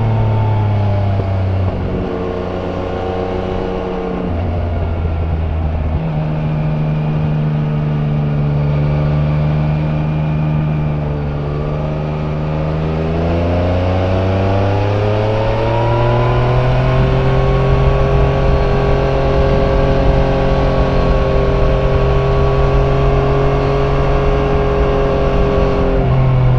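Yamaha Niken GT's 847 cc inline-three engine through its stock exhaust, heard on board while riding. Its pitch falls over the first few seconds and steps down a few times. It runs at low revs for a while, then rises as it accelerates about 13 to 16 seconds in and holds steady revs after that.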